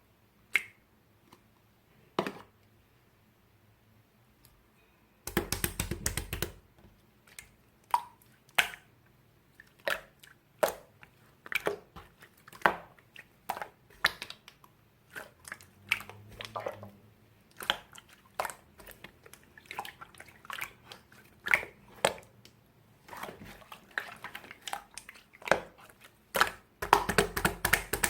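Slime being squished and stretched by hand, giving wet pops and clicks about a second apart, with bursts of rapid crackling around five seconds in and again near the end.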